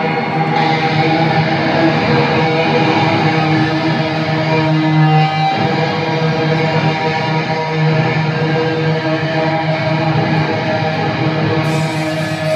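Loud amplified rock music with electric guitar playing over a stadium sound system, picked up from the stands, with sustained guitar chords that shift about halfway through.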